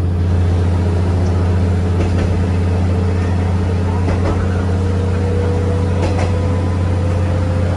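Diesel railcar running, heard from inside the car: a steady low engine drone with a faint whine that slowly rises in pitch.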